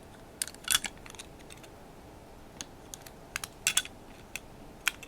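Irregular light clicks and snaps of a Craftsman retractable utility knife's plastic and metal housing being pressed and fitted shut by hand, a few seconds apart with a small cluster near the middle.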